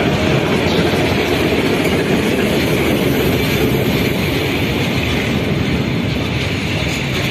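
Freight train of loaded open wagons rolling past at close range, a steady loud rumble of wheels on rails.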